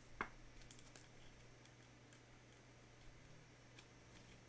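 Faint clicks and taps of a clear plastic trading-card holder being handled in gloved hands. There is one sharper click just after the start, a few softer clicks about a second in, then only odd faint ticks.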